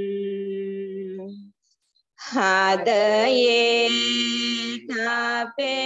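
Buddhist Pali verses in praise of the Buddha chanted in a slow, drawn-out melodic style. A held note fades out about a second and a half in. After a short pause the next line starts loudly on long sustained notes, broken by brief breaths near the end.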